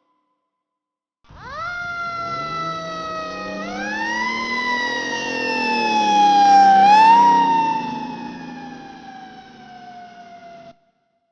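Fire truck siren wailing over engine rumble. Its pitch sweeps up and slowly falls three times, starting about a second in. It grows louder to a peak, then fades and cuts off abruptly near the end.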